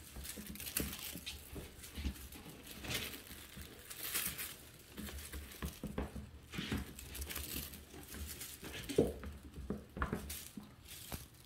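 Rustling and crinkling of a feather-and-streamer wand toy as it is swished and batted, with a kitten's paws pattering and scuffling on a rug, and one louder short sound about nine seconds in.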